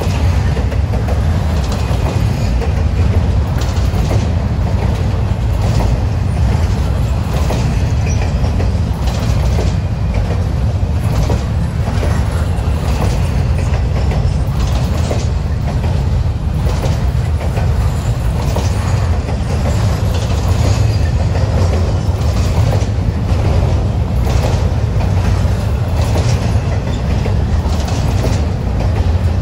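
Freight train rolling past with a steady heavy rumble, its wheels clicking over the rail joints.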